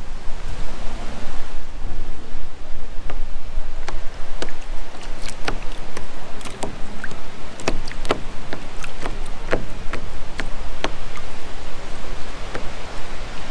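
Steady low wind rumble on the microphone, with an irregular scatter of sharp clicks and taps from about three seconds in as a largemouth bass is handled in a plastic kayak.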